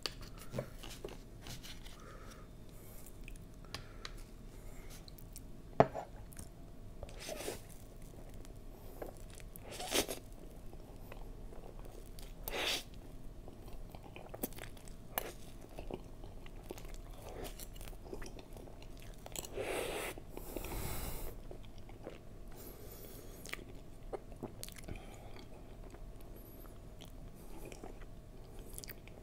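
Close-up eating sounds: chewing soft brazo de mercedes, a meringue roll with custard filling, with scattered sharp clicks of a fork and knife cutting it. A louder stretch of a second or so comes about two-thirds of the way through.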